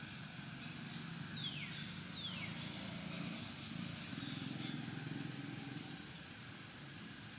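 A steady low engine hum runs throughout. Two short, high chirps falling in pitch come about a second and a half and two seconds in.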